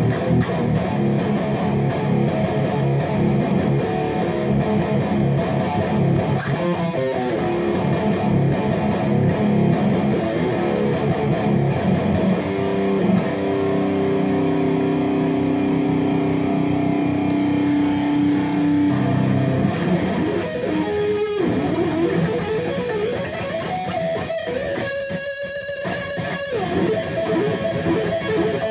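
Distorted high-gain electric guitar played through a Firepower preamp-overdrive pedal, a JCM 800-style preamp with a Tube Screamer-type overdrive, playing metal riffs. Busy rhythmic riffing gives way to a chord held for several seconds about halfway through, followed by more riffing.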